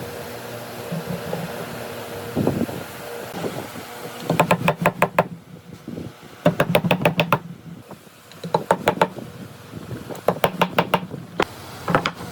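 A mallet tapping a carving chisel into wood in quick bursts of sharp strikes, about eight a second, each burst lasting about a second with short pauses between. A steady hum runs underneath.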